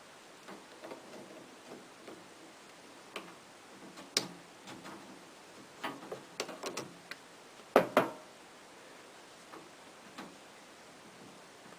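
Irregular light clicks and knocks of hard plastic and metal parts being handled while working on a washing machine's inlet valve, with two louder knocks in quick succession about eight seconds in.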